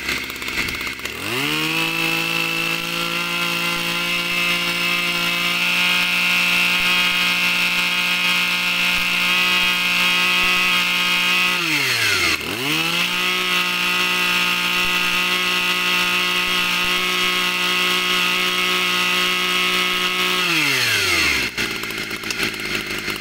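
Kioritz (Echo) 26 cc two-stroke backpack brush cutter engine, running free with no load. It revs from idle up to a steady high speed about a second in, drops briefly about halfway through and revs straight back up, then falls back to a low idle near the end.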